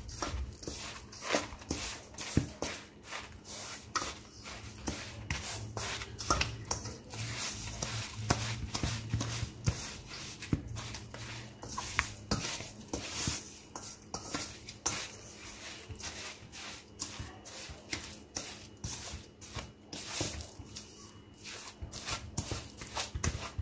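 Spatula scraping and pressing butter and brown sugar against a stainless steel mixing bowl, creaming them by hand: a run of irregular rubbing scrapes and soft knocks.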